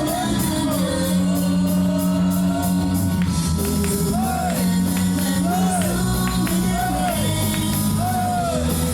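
Idol pop song played loud through a concert hall's PA, a woman singing over drums, bass and a steady cymbal beat.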